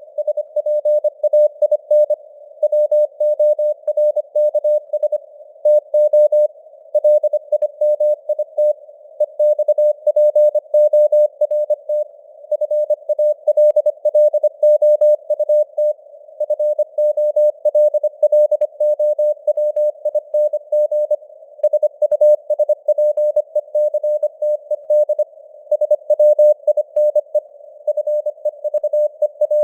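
Computer-generated Morse code (CW) tone sending text at 25 words per minute: a single steady-pitched beep keyed in short dots and longer dashes. It sits in a narrow band of simulated radio receiver hiss, with the signal strength fading up and down (QSB).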